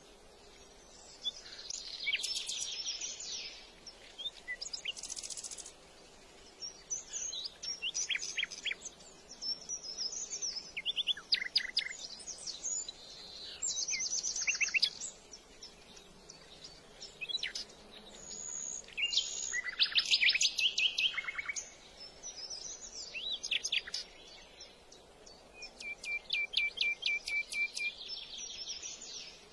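Songbird singing a string of varied phrases of quick chirps, whistles and trills, each a second or two long with short pauses between. Near the end comes a rapid trill on one steady pitch.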